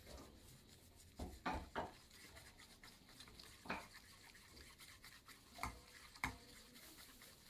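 Chopsticks scraping and stirring half-set scrambled egg in a small nonstick frying pan: a few faint, separate scrapes and taps against the pan as the eggs begin to set.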